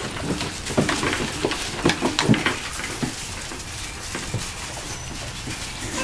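Pointer puppies, about eleven weeks old, yipping and scuffling in a quick string of short, sharp sounds. The sounds die down after about three seconds.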